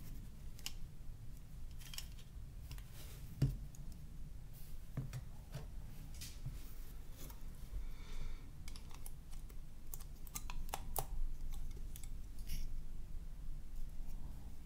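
Irregular small clicks and taps of plastic and metal parts of a Nokia N91 phone as it is taken apart by hand, with one sharper knock about three seconds in.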